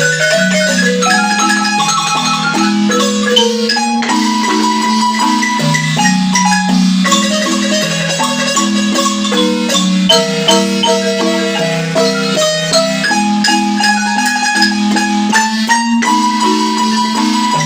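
Marimba playing a lively melody of quick struck notes over held low notes in the bass.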